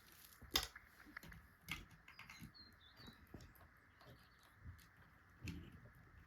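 Faint scattered clicks and light knocks of a telephone and its cord being handled, with a brief faint high chirp about two and a half seconds in.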